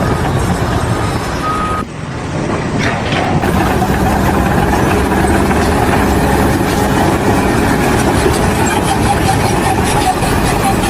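Engine of a heavy vehicle or machine running steadily. About two seconds in it breaks off suddenly and similar engine noise carries on.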